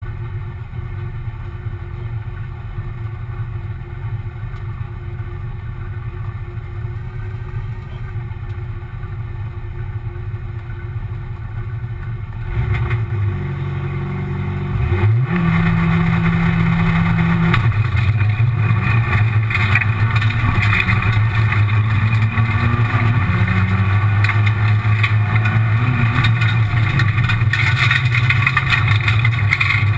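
Rally car engine heard from inside the cabin, running steadily at first, then revved up about halfway through and launched away, accelerating hard with rising and falling engine pitch through gear changes and loud road noise from the gravel.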